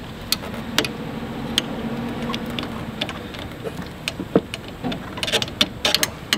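Hands and a tool working a coolant hose off its fitting in an engine bay: scattered small clicks and knocks of plastic and metal, coming faster in the last couple of seconds, over a faint low hum in the first few seconds.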